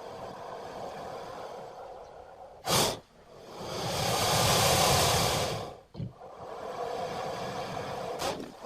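Cartoon mongoose sound effects: breathy, hissing animal sounds. A short sharp burst comes near the third second, then a hiss swells to its loudest around the fifth second and fades. Another short burst follows, then a further breathy hiss.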